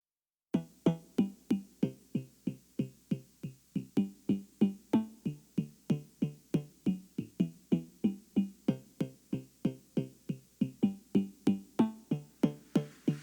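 Music: a keyboard or synthesizer playing short, evenly spaced notes, about three a second, starting after a brief silence.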